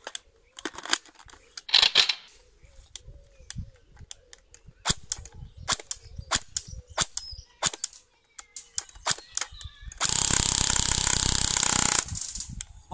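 JG AUG A2 airsoft electric gun with a dual sector gear firing a run of sharp single shots, then a loud two-second full-auto burst near the end. The burst is one unbroken buzz at the build's very high rate of fire, about 1800 rounds a minute on a 7.4 V LiPo.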